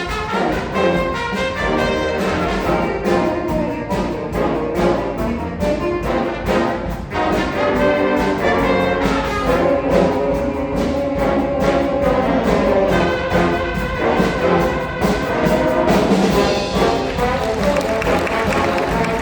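A high school band playing an up-tempo arrangement, with brass carrying sustained chords over steady drum hits.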